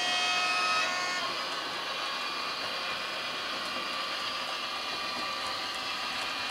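Sound decoder of an H0-scale model TEE RAm diesel railcar playing through its small onboard speaker: a horn note that cuts off about a second in, then steady diesel engine running sound.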